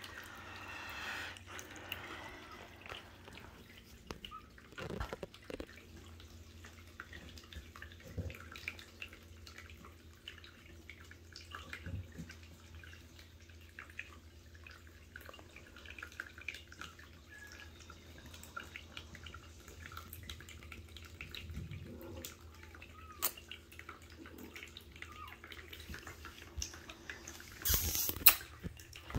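Faint scattered clicks and soft rustling of newborn kittens crawling on a knit blanket, over a low steady room hum, with a louder rustle of movement about a second before the end.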